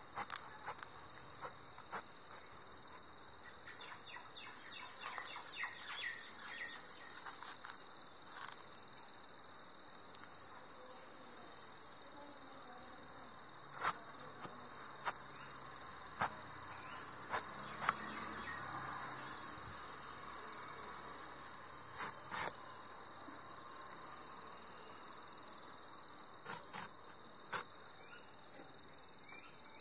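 Insects chirping steadily outdoors, a continuous high-pitched chorus. It is broken by a handful of sharp clicks, most of them in the second half.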